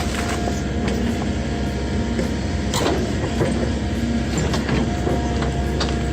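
Heavy machine's engine running steadily, with scattered knocks and clatter over it.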